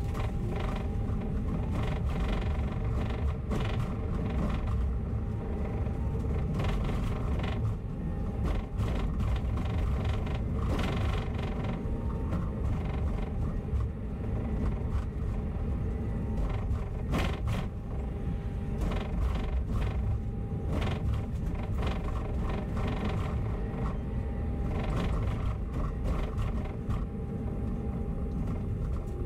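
A bus in motion, heard from inside: a continuous low rumble from the engine and the road, with frequent creaks and rattles from the bus body and a steady hum underneath.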